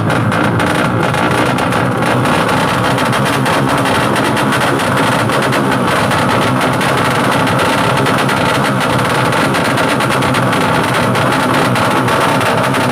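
Tuned four-stroke underbone drag motorcycle engines running loudly and steadily with a rapid rattling firing.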